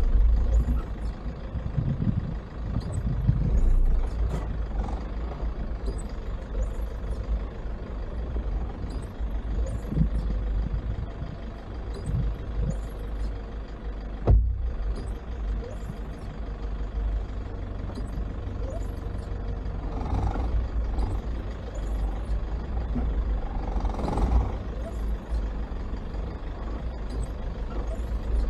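Toyota Fortuner SUV driving over a rough off-road track: steady low engine and running rumble, with one sharp knock about halfway through.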